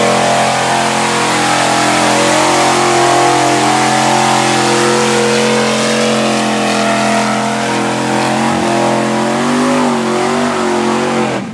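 Lifted Chevrolet pickup's engine running hard at high revs while its mud tyres churn through deep mud, the pitch wavering near the end.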